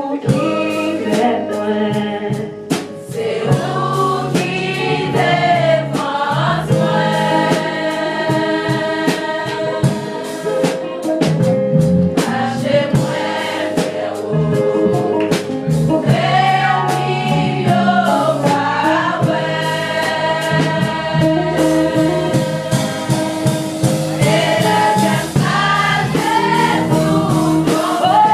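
Gospel choir singing a worship song over instrumental backing, with held, gliding sung notes and a steady percussive beat.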